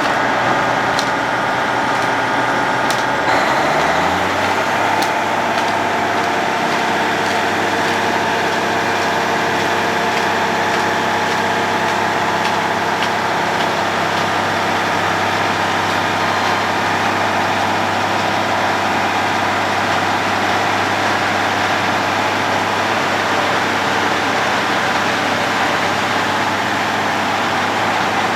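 Heavy diesel engine of a road planer running. Its pitch rises about four seconds in, then holds steady.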